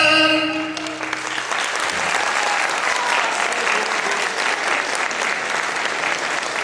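Audience applauding as a folk dance tune ends, its last held note dying away about a second in and leaving steady clapping.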